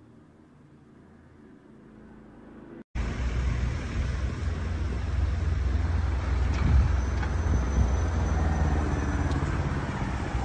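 Faint background hum for about three seconds, then, after an abrupt cut, steady road traffic noise from cars on a street with a heavy low rumble.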